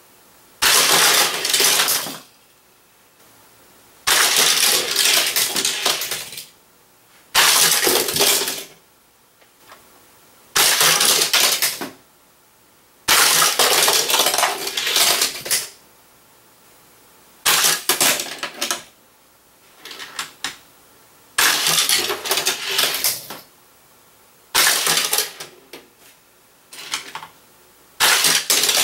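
A toy car track launcher snapping, then die-cast toy cars rattling along plastic Hot Wheels track, about nine runs in a row with a short quiet gap between each. Each run starts sharply and lasts a second or two.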